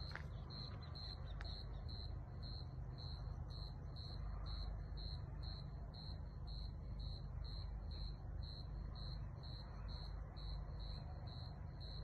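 A cricket chirping steadily, about two short high chirps a second, over a steady low rumble.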